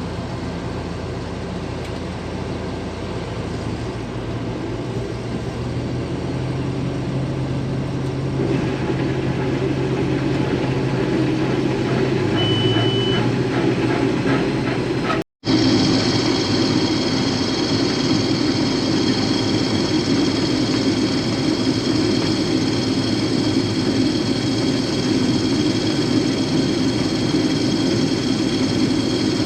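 Diesel engine of a combine harvester running steadily, building louder about eight seconds in, with a short high beep about a second after that. After an abrupt cut about halfway through, a louder steady run of engine and machinery with a higher whine takes over.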